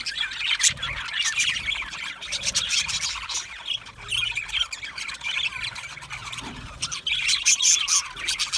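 Budgerigars chattering: a dense run of quick, overlapping chirps, warbles and squawks.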